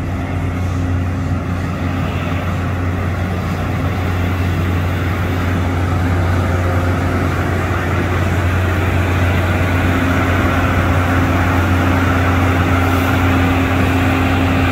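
Galveston Island Trolley rail car running past at close range: a steady low mechanical hum with a faint higher drone, growing slightly louder in the second half as the car goes by.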